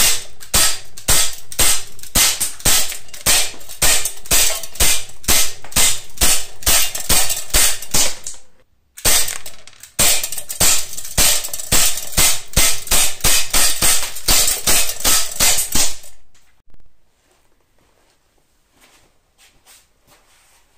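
Glock 19 CO2 BB pistol firing 4.5 mm steel BBs in rapid fire, about three sharp shots a second, each BB striking a steel pellet trap. The firing breaks off briefly about eight and a half seconds in, resumes, and stops about sixteen seconds in, leaving only a few faint ticks.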